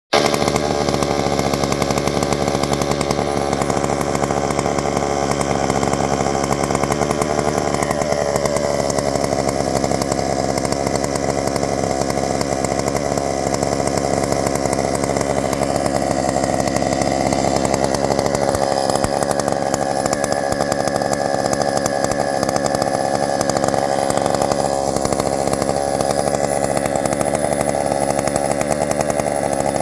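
Stihl MS461 76.5cc two-stroke chainsaw running steadily and loudly, with small shifts in pitch about eight seconds in and again near the end.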